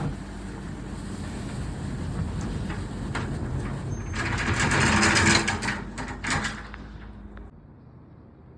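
Mini excavator engine running under load, with a loud spell of crunching and scraping of broken masonry about halfway through. The sound drops off abruptly near the end.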